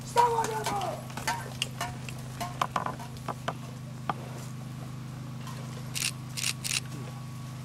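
A short cry falling in pitch at the start, then scattered clicks and knocks as the reenactors' horses and riders move off. A few camera shutter clicks come near the end, over a steady low hum.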